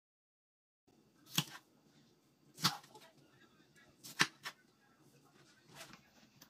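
Kitchen knife cutting red peppers on a bamboo cutting board: four sharp knocks of the blade hitting the board, about a second and a half apart, the last one fainter.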